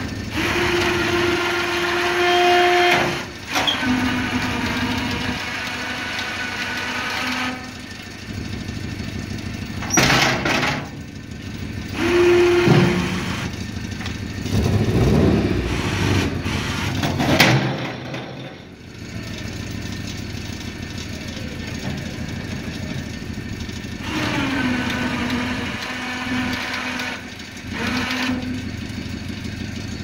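Electric-hydraulic plow pump whining in several spells of a few seconds as the plow blade on a 1989 Honda CRX Si is raised, angled and dumped, the whine dropping in pitch partway through a spell. The car's engine idles underneath, with sharp clunks from the blade gear about ten and seventeen seconds in.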